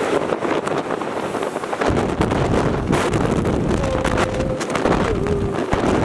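Hard wind blowing and buffeting the microphone; heavy low rumbling gusts set in about two seconds in.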